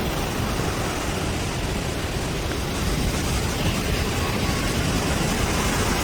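Steady rushing roar of the Rhine Falls' water, a little louder from about halfway through.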